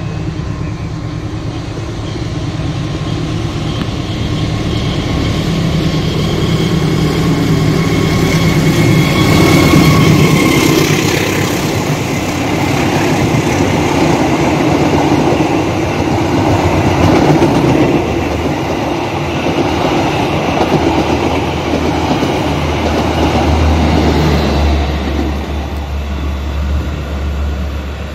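Argo Bromo Anggrek express, a diesel-electric locomotive hauling stainless-steel passenger coaches, passing at speed close by. The sound builds to its loudest about ten seconds in as the locomotive goes by, with a steady high whine that stops then. The coaches' wheels keep rumbling along the track until they fade near the end.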